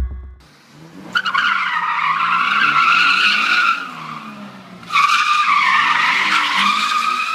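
Car tyres squealing in a drift: two long skids, the first starting about a second in and the second about five seconds in, with an engine running underneath.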